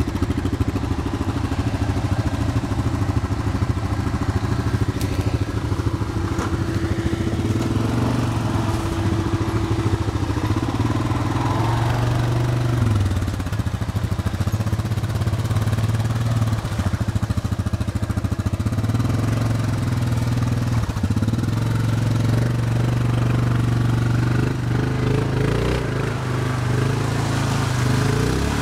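2010 Yamaha Grizzly 700 ATV's single-cylinder engine running under load on a muddy trail, its note rising and falling with the throttle. Near the end the machine is churning in deep mud.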